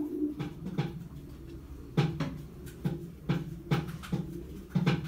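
A series of about nine irregular knocks, some in quick pairs, with a faint hum underneath.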